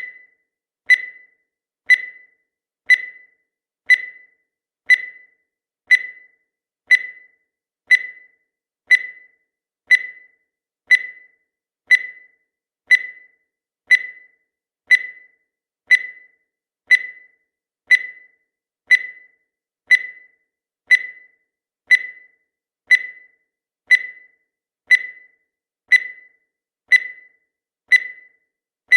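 Countdown timer sound effect: a short, high electronic beep once every second, each dying away quickly.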